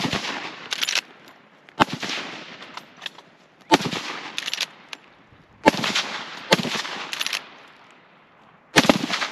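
Lever-action rifle fired in quick succession: five loud shots about two seconds apart, each dying away over a second or so. Fainter sharp cracks come between the shots.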